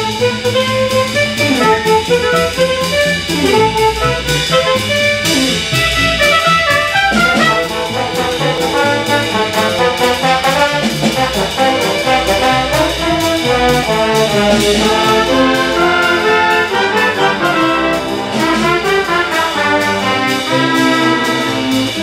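Student jazz big band playing a swinging tune, the trombone section prominent over saxophones, piano and upright bass, with the drum kit keeping a steady beat.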